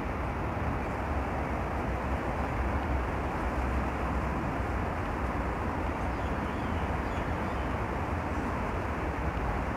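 Steady outdoor city noise: a continuous low rumble with an even hiss above it, no distinct events.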